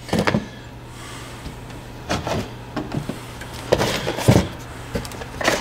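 Hard parts of a steering-wheel quick release and their packaging being handled: a few irregular clicks and knocks, over a steady low hum.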